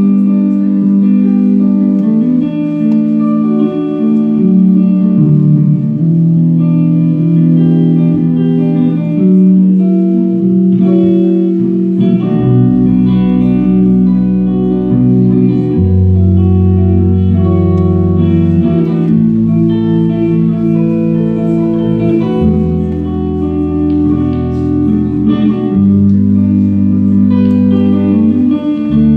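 Live rock band playing with electric guitars; deep bass notes come in about twelve seconds in and carry on underneath.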